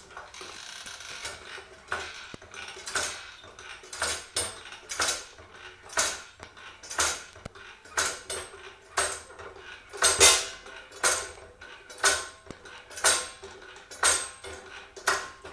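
Hydraulic trolley jack being pumped by its handle, about one stroke a second, each stroke a metallic clink, as it lifts a car's front suspension wishbone.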